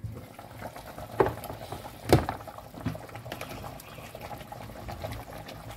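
Meat broth boiling in the base pot of a couscoussier as the steamer basket of couscous is lifted off after its second steaming, with sharp metal knocks about one and two seconds in.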